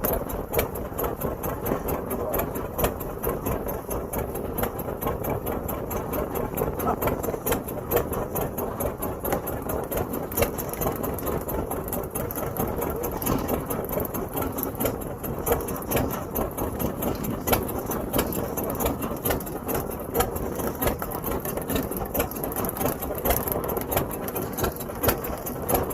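A fishing boat's engine running steadily, with a fast, even ticking.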